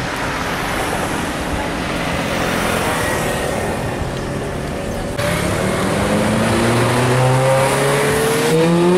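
Street traffic rumble, then a Ferrari F430-series V8 accelerating away, its engine note climbing steadily in pitch over the last few seconds.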